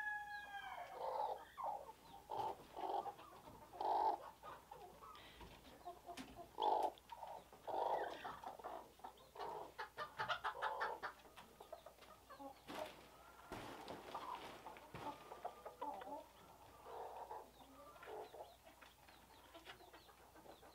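Chickens clucking, many short separate clucks, with a quick run of calls around ten seconds in and a few sharp knocks near the middle.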